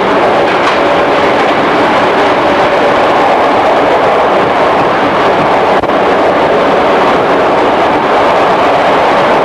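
Running sound of a JR 211 series electric train heard from inside its motor car: a loud, steady roar of wheels on rail and traction motors with a faint steady hum. A single short click comes about six seconds in.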